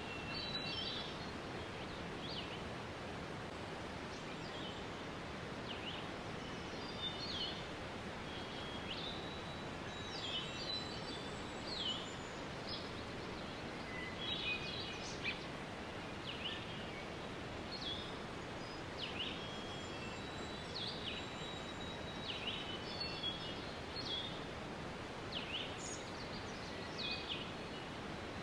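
Steady rushing of a waterfall with many birds chirping over it in short, high, quick notes, several of them sliding downward in pitch.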